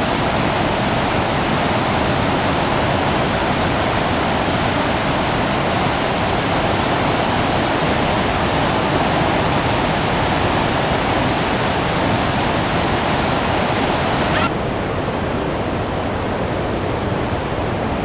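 Roar of Niagara Falls: a dense, steady rush of falling water. About fourteen seconds in it cuts off abruptly to a quieter, duller hiss.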